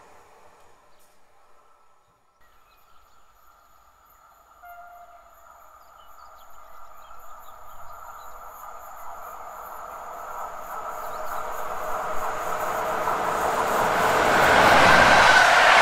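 Polish EP07 electric locomotive hauling a passenger train, approaching along the track: the running noise of wheels on rail builds steadily from faint to loud and is loudest near the end as the train draws level.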